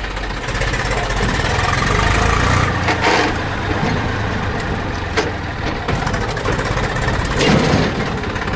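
Eicher 380 Super DI tractor's diesel engine running under way, heard from the driver's seat. It revs up about half a second in and eases off near three seconds in.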